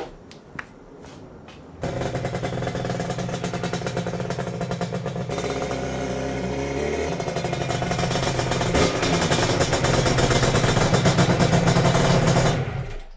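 Yamaha RD350's two-stroke parallel-twin engine running and revving. It starts abruptly about two seconds in, changes pitch around the middle, grows louder, and cuts off sharply near the end.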